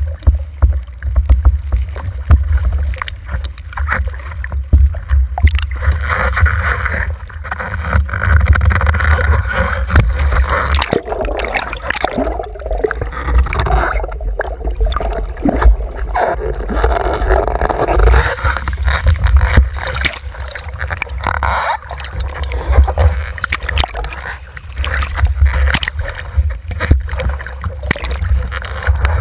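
Water rushing and splashing against a windsurf board planing at speed, under a heavy, steady rumble of wind buffeting the microphone. From about six seconds in the rushing grows louder for around thirteen seconds as spray washes over the board, then eases back.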